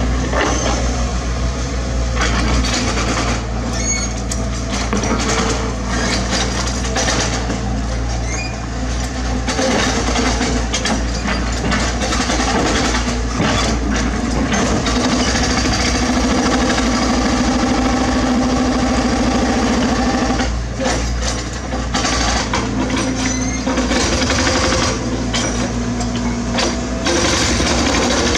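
Mini excavator diesel engine running steadily, its note easing and picking up with the work, with scattered knocks and scrapes of rock debris being gathered by the bucket.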